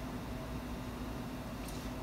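Quiet room tone: a steady low hum with faint hiss, and a faint brief rustle near the end.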